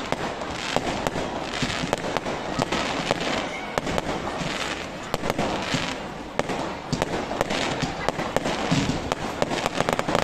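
Fireworks going off: many sharp bangs and crackles from bursting shells in quick succession, over a continuous hissing rush of launches.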